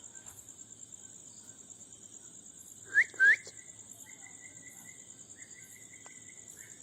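Two short, loud rising whistled notes, about a third of a second apart, in a call-and-answer whistling exchange with a bird. They sit over a steady high-pitched insect trill.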